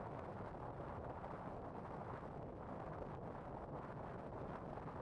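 Steady low rumble of a vehicle driving on the open road: engine and tyre noise without change.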